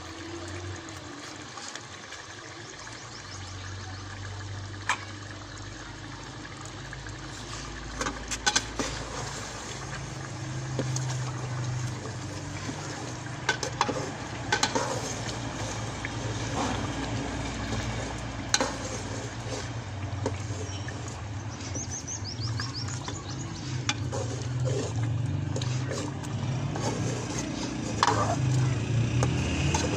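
Chicken curry bubbling and sizzling in an aluminium pot over a wood fire, with scattered knocks and scrapes of a wooden spoon against the pot as it is stirred.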